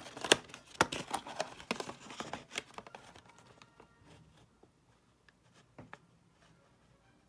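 Packaging of a trading-card box being torn and crinkled open by hand: a dense run of tearing, crinkling and sharp clicks for about three seconds, then a few scattered clicks and taps.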